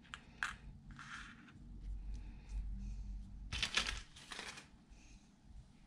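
Faint handling of paper and plastic on a craft table: soft rustles and a few short crinkles, the loudest a little past halfway, with a dull low rumble in the middle.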